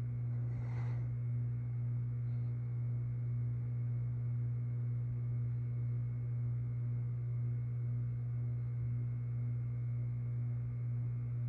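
Harbor Breeze Springfield II ceiling fan running, its motor giving a steady low hum.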